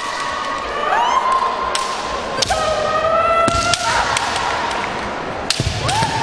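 Kendo fighters' kiai: long drawn-out shouts, each sliding up and then held, two voices overlapping. Sharp clacks of bamboo shinai striking one another cut across them, and near the end come a couple of thumps from stamping feet on the wooden floor.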